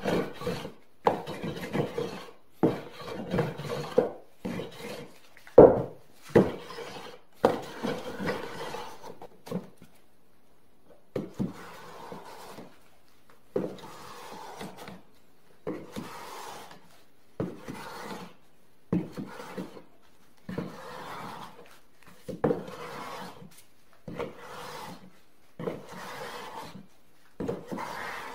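Hand tool worked over wood in repeated rubbing strokes, about one a second, with a short pause about ten seconds in.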